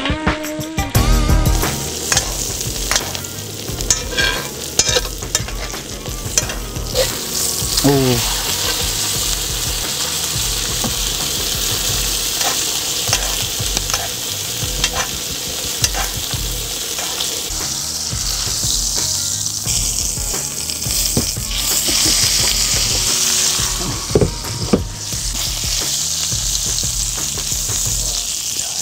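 Ribeye steak sizzling in foaming butter in a cast iron skillet while a metal spoon bastes it, with frequent small clinks and scrapes of the spoon against the pan over a steady hiss.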